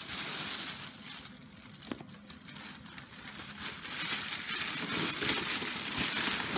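Packaging rustling and crinkling as a gift box is handled and unpacked, with a couple of light knocks.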